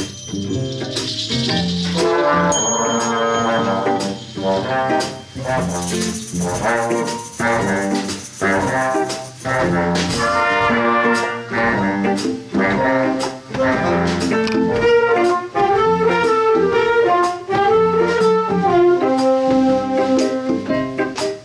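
A big band playing: brass section over a drum kit keeping a steady beat, with a cymbal wash partway through and the horns holding long melody notes in the latter half.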